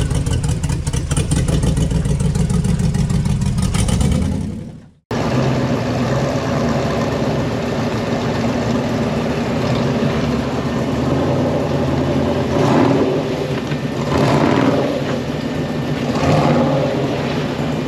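Off-road 4x4 vehicle engine running steadily. It fades out about five seconds in; after the break an engine runs again, with several short surges in revs in the last few seconds.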